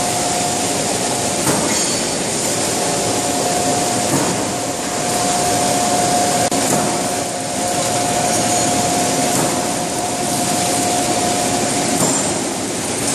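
Sheet-metal cut-to-length line running: a continuous mechanical rumble and clatter of rollers and drives, with a steady whine that stops about twelve seconds in and a few faint knocks.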